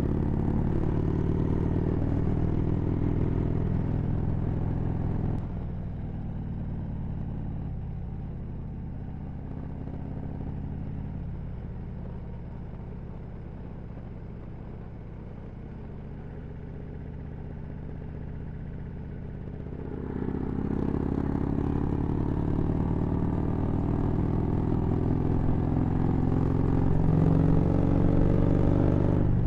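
Harley-Davidson Road Glide Ultra's Twin Cam 103 V-twin running on the road. Its note drops and goes quieter about five seconds in as the throttle is eased off. From about twenty seconds in it gets louder again and rises in pitch as the bike accelerates.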